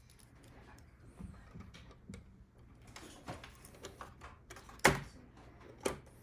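Plastic hard-drive trays of a NAS being handled and pushed into their bays: scattered light clicks and rattles, with a sharp click about five seconds in and another near the end.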